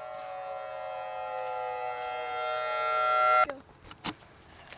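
A siren-like chord of several held tones, one of them slowly sliding lower, swelling louder and then cut off abruptly about three and a half seconds in. A single sharp click follows.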